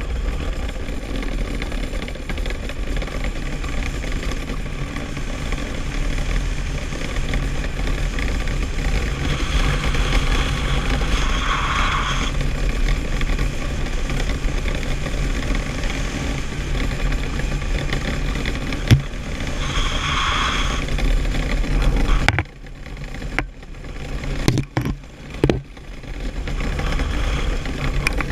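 Steel runners of a DN iceboat rumbling and hissing steadily over flat ice while it sails, mixed with wind on the microphone. A little after 22 seconds in the noise cuts out abruptly, a few sharp knocks follow, and the rumble comes back near the end.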